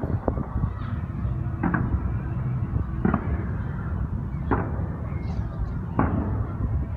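Distant fireworks shells bursting, five sharp bangs about every second and a half, over a steady low rumble.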